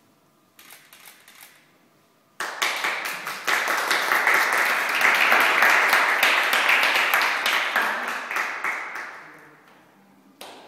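A small group of people clapping, setting in suddenly a couple of seconds in and dying away over the last few seconds.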